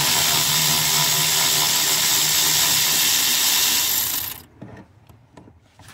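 Cordless electric ratchet running steadily for about four seconds as it backs out a 12 mm bolt at the bottom of the steering column, then stopping; a few faint clicks follow.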